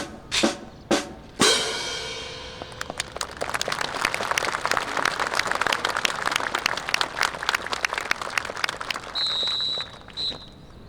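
Drum beating out a marching cadence, about two beats a second, ending in a loud crash about a second and a half in. Then crowd applause swells and fades, and a short high whistle sounds twice near the end.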